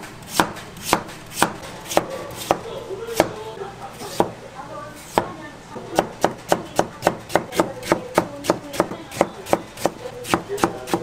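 Kitchen knife chopping food on a cutting board: a few spaced strokes, then fast, even chopping at about five strokes a second from about six seconds in.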